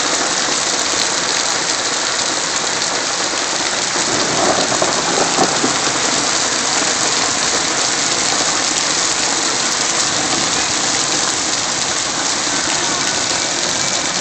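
Heavy rain mixed with hail pelting the pavement and parked cars: a steady, dense hiss, with a few sharper hits about five seconds in.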